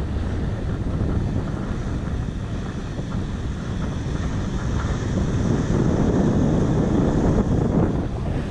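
Wind buffeting the microphone while riding: a steady low rumble that swells louder about five and a half seconds in.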